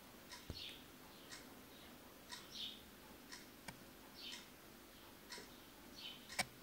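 A clock ticking faintly once a second, with a faint high, falling chirp recurring about every two seconds and one sharper click near the end.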